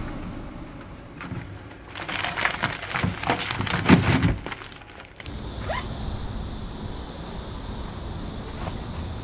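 A dense run of crackling and rustling, like something being handled, for about two seconds. It stops suddenly, and a steady hiss follows.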